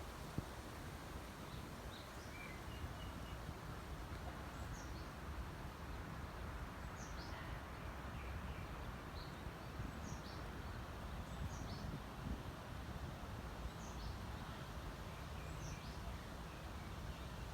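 Steady wind noise with a low rumble, through which small birds give short, high, falling chirps every second or two.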